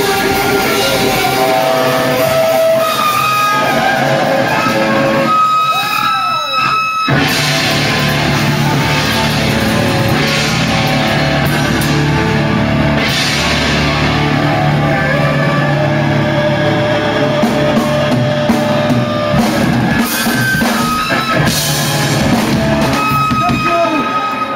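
Live hard rock: a distorted Les Paul electric guitar and a pounding drum kit with cymbals playing loud. About six seconds in the drums and low end drop out for a moment, leaving a single bending guitar note, and the full band comes back in about a second later.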